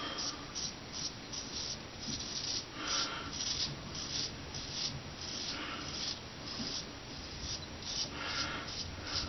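Straight razor scraping through beard stubble in a run of short strokes, roughly two a second, each a brief dry rasp.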